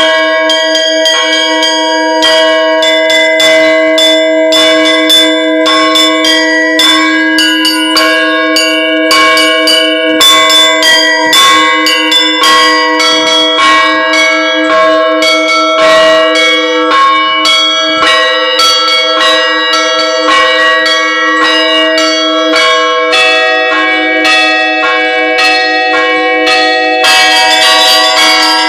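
Bells ringing: a steady run of strikes, several a second, each ringing on and overlapping the next.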